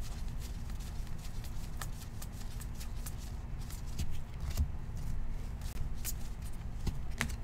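Stack of Topps baseball cards being flipped through by hand, each card slid off the front of the pile: a run of light, irregular card flicks and rubs.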